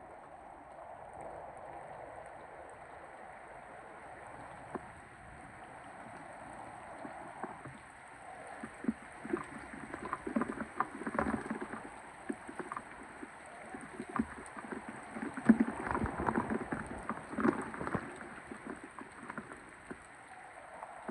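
Thunderstorm rain and wind: a steady rush that grows louder and choppier partway through, with many sharp pelting knocks and splashes, then eases again near the end.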